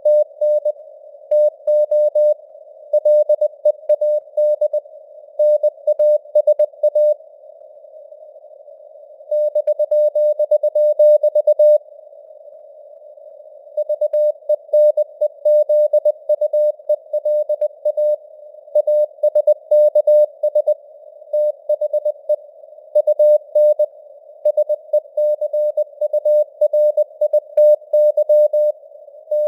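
Morse code (CW) sent at 20 words per minute as a single pitched tone of about 600 Hz, keyed on and off in dots and dashes, over a narrow band of simulated radio hiss. The keying stops for about two seconds twice, near a quarter and near halfway through.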